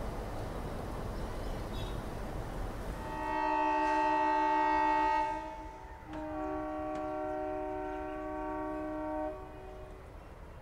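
Diesel locomotive's multi-tone horn sounding two long blasts, the first about two seconds long starting some three seconds in, the second about three seconds long, with people walking on the tracks ahead. Beneath and between them, the steady rumble of the coaches running on the rails.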